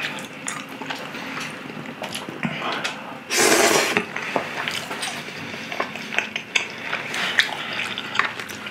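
Eating sounds: metal chopsticks clicking and scraping in a foil tray of sauced chicken and udon noodles, with chewing, and one loud slurp of noodles about three seconds in.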